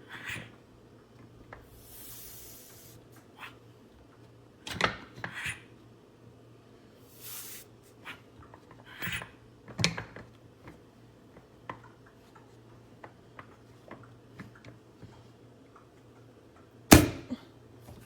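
Scattered clicks and knocks as the plastic parts of a single-cup coffee maker are handled, with a sharp knock near the end and two brief hissing rushes.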